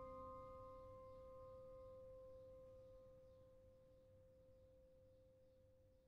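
The last sustained chord of organ music dying away into near silence. A single faint steady tone lingers after the other notes have faded, about four seconds in.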